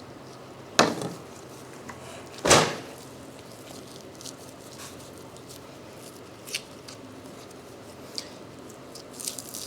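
Butchery work on a cutting board while a beef tenderloin is trimmed: two short knocks in the first few seconds, then a few faint clicks and handling noises.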